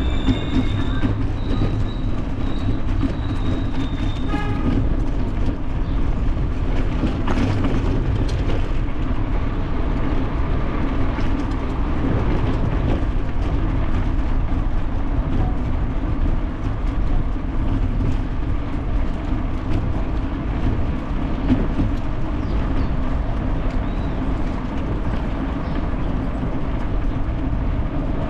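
Bicycle rolling over cobblestone paving: a steady rumble and rattle from the tyres jolting over the stones. A thin high tone sounds during the first few seconds.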